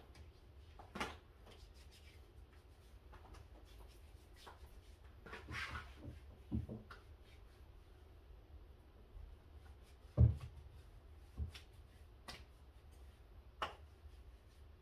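Faint handling sounds: scattered light clicks, taps and rubs over a steady low hum, with one louder dull thump about ten seconds in.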